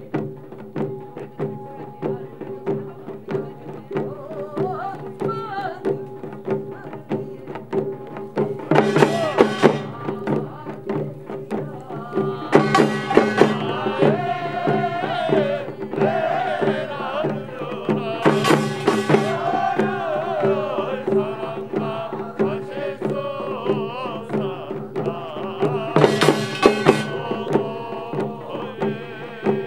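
Korean pungmul folk percussion band playing: hand drums and barrel drums beat a fast, steady rhythm. A wavering melody rises over it in the middle, and there are several brief louder, brighter swells.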